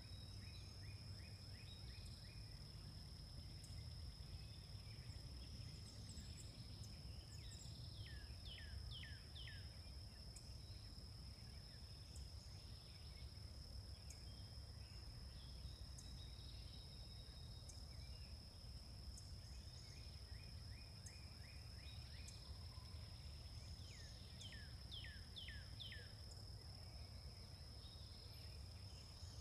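Faint meadow ambience: songbirds singing, a quick run of short repeated notes twice and a series of four or five falling whistles twice, over a steady high-pitched drone and a low rumble.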